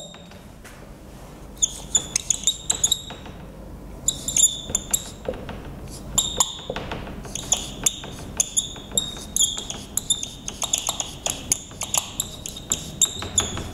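Marker pen writing on a whiteboard: many short high squeaks and sharp taps as letters are stroked out, coming in clusters from about a second and a half in.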